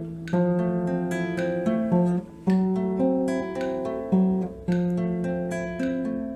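Instrumental acoustic guitar music: a run of plucked notes and chords, with a brief break about two seconds in.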